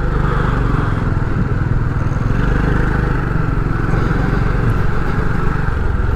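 Motorcycle engine running steadily while riding, a continuous low rumble with road and air noise on the camera mic.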